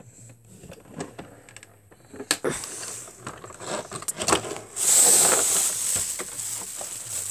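Plastic clicks and knocks of a Beyblade top being fitted to its string launcher, then from about five seconds in a louder steady hissing rattle as it is test-launched and spins on a hard wooden floor.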